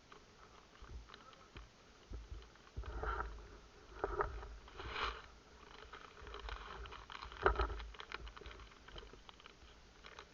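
Rustling and handling noise with scattered light clicks and a few dull knocks, the loudest about seven and a half seconds in.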